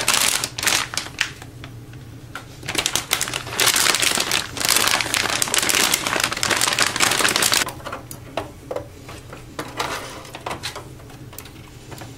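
A motherboard being fitted into a steel PC case: rapid clicking and rattling of the board, screws and metal parts, heaviest in the middle and lighter near the end.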